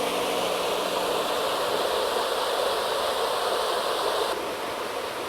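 Waterfall and churning river water making a steady rushing noise, with its high end dulling slightly about four seconds in.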